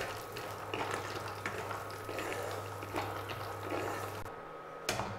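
Wooden spatula stirring almonds and cashews as they roast in a little ghee in a non-stick kadhai: the nuts rattle and click against the pan over a faint sizzle and a steady low hum. The stirring stops about four seconds in.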